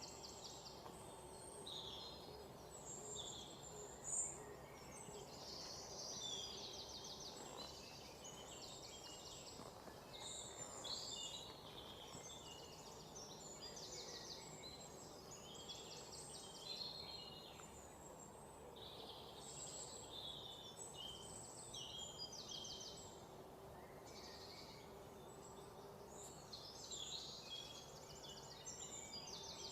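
Small birds chirping and trilling over and over, faint, over a low steady hum.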